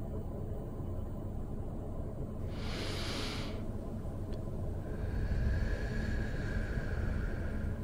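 Steady low rumble of outdoor ambience on a moving handheld camera, with a short burst of hiss about three seconds in and a faint thin whine in the last few seconds.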